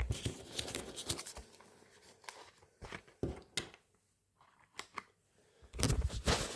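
Small tools and objects being handled and slid into a wallet pocket: scattered clicks, taps and rustles, with a busier scuffing stretch near the end.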